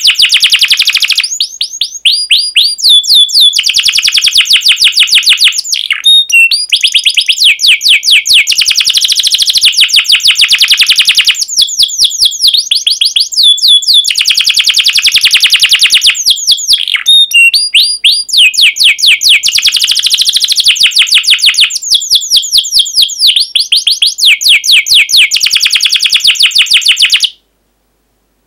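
Domestic canary singing: long, fast trills of sharp repeated notes, phrase after phrase with short breaks. The song breaks off abruptly near the end.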